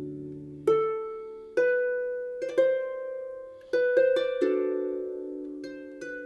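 Background music: a harp-like plucked string instrument playing slow, ringing notes.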